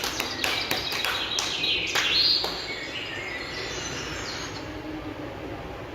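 Short clapping in the first couple of seconds, then a recording of small birds chirping and twittering, played back over a speaker.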